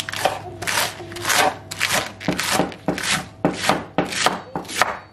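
Kitchen knife chopping lettuce on a wooden cutting board: a steady run of quick cuts, about three a second, each a short swish through the leaves ending in a knock on the board.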